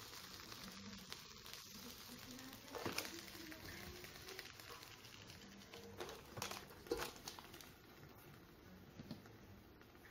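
Faint sizzling of lamb, bean sprouts and onions cooking on an electric hot plate. A few sharp clacks of chopsticks and the lid against the plate cut through it, the loudest about three seconds in and a couple more around six to seven seconds.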